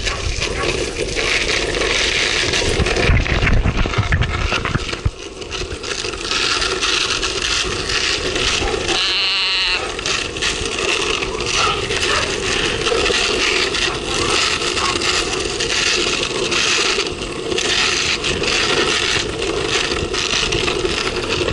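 Longboard wheels rolling over rough pavement: a steady, gritty rolling noise with rattle, dipping briefly about five seconds in.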